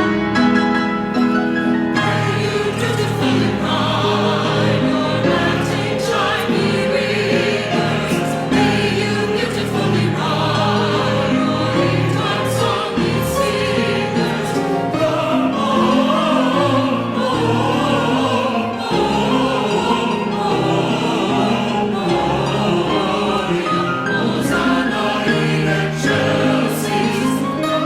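Church choir singing with instrumental accompaniment. The choir comes in about two seconds in, after a short instrumental passage.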